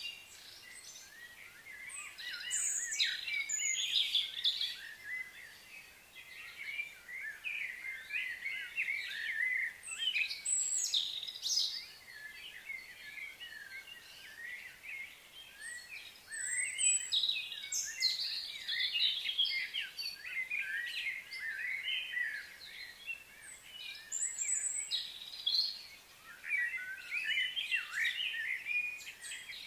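Small birds chirping and twittering in busy, overlapping bursts that come and go every few seconds.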